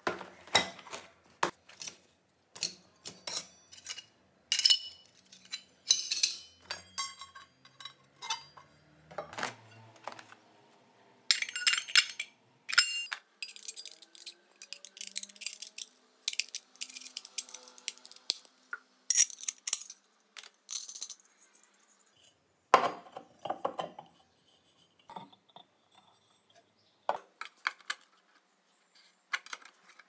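Clinks and rattles of steel hole-saw cups and fittings being handled and set down, with one sharper knock a little over two thirds of the way through.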